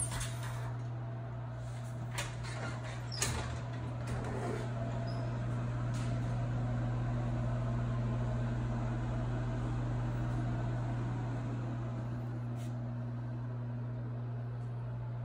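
A steady low hum of a quiet room, with two short knocks about two and three seconds in from a louvered closet door being shut.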